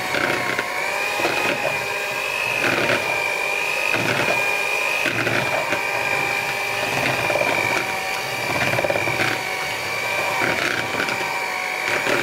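Philips electric hand mixer running at medium speed with a steady motor whine, its beaters working egg into thick choux pastry dough in a plastic bowl, with irregular knocks throughout.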